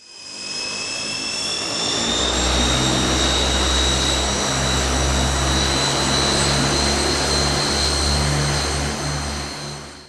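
Airliner's turbine engines running, a high whine that rises slowly in pitch over a dense rush and a low drone. It fades in at the start and fades out near the end.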